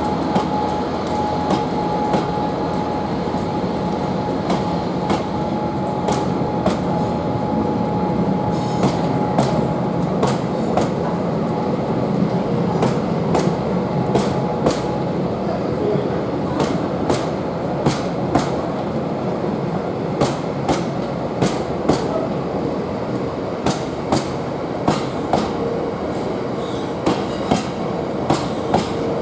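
Heavily loaded stone train pulling away slowly: a steady heavy rumble, with the wagons' wheels clicking over rail joints, the clicks coming more often as it gathers speed.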